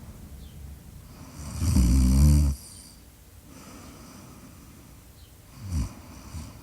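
Snoring: one long, loud snore about a second and a half in, and a short snort near the end, with quieter breathing between.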